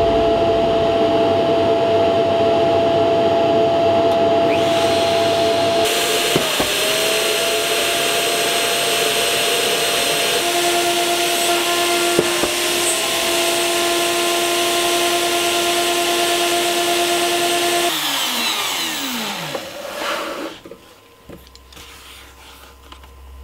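Handheld CNC router (Shaper Origin) cutting wood with dust extraction running: a steady motor whine over rushing noise. The pitch dips briefly twice as the bit takes load. About eighteen seconds in, the spindle shuts off and winds down with a falling whine.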